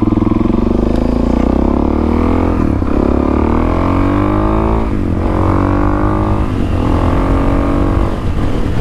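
Kawasaki KLX400's single-cylinder four-stroke engine accelerating up through the gears. The engine note climbs in pitch, dips at each of four upshifts about every two seconds, and climbs again.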